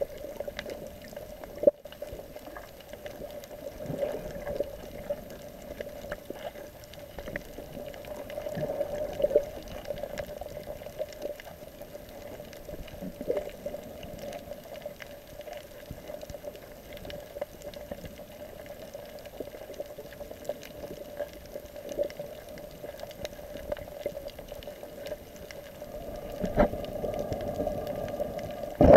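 Muffled water noise picked up by a camera held underwater: a steady low wash of moving water with scattered faint clicks and knocks, and a louder knock near the end.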